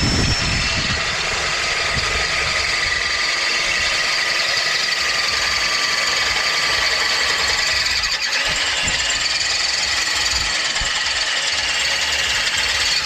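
Power drill running steadily at full speed with a high motor whine, its bit grinding into the catalytic converter core inside a motorcycle exhaust pipe to punch holes through it.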